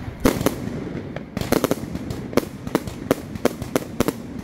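Aerial fireworks going off in a quick, uneven run of sharp bangs and pops, about three a second, with a short lull about a second in.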